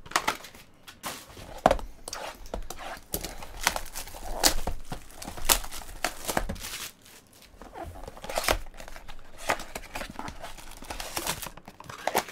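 Clear plastic wrap crinkling and tearing as it is pulled off a small cardboard trading-card pack box, then the box's cardboard flap being opened, in a run of irregular crackles and sharp snaps.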